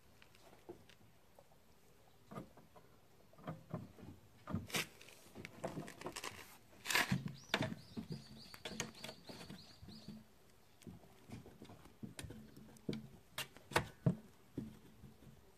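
Kittens scrambling and pawing around a plastic container and tarp: scattered light taps, knocks and rustles, busiest in the middle and again near the end. A faint thin high tone holds for a few seconds midway.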